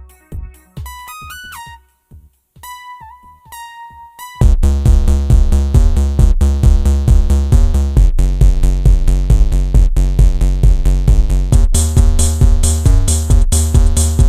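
Electronic background music: a quiet sparse opening with a few held synth notes, then a loud electronic track with a steady drum-machine beat that kicks in about four and a half seconds in.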